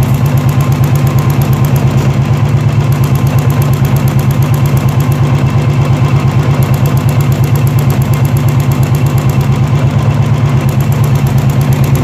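Royal Enfield BS4 single-cylinder engine idling, with an even, rapid tik-tik ticking. The ticking is easily taken for tappet noise, but it comes from the charcoal canister of the evaporative emission system.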